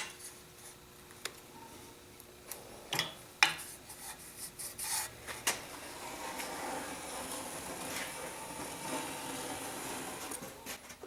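Clicks and knocks of parts being handled, then about four seconds of steady rubbing and scraping.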